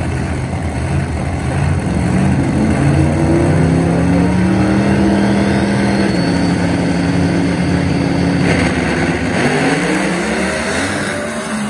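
Drag race car engine at the strip, revving up, held at high revs for several seconds, then dropping off near the end.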